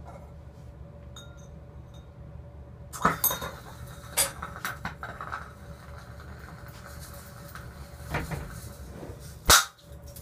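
Potassium reacting violently with water in a beaker covered with wire gauze. About three seconds in there are sudden cracks as the released hydrogen ignites, followed by fizzing and crackling with scattered pops. Near the end comes a single sharp, loud pop.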